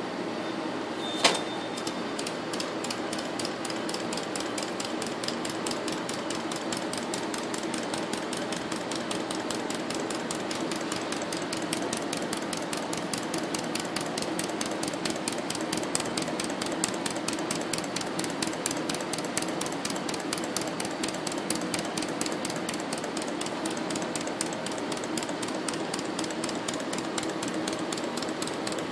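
Small model steam engine running, its moving parts making a rapid, even clicking over a steady hum. One sharper click stands out about a second in.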